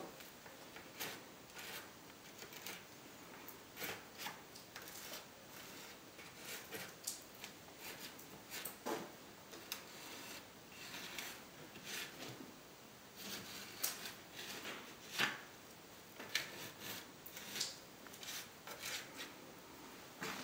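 A piece of wood scraping along fresh grout joints between gypsum imitation-stone tiles, taking off the excess grout: a run of short, irregular scrapes.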